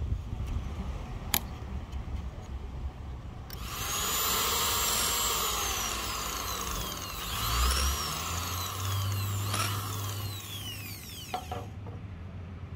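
Electric hand drill with a small bit boring into the kerfed end of a Siamese rosewood axe handle. It starts about three and a half seconds in, runs for about eight seconds, and its whine falls away twice as the trigger is eased, before it stops.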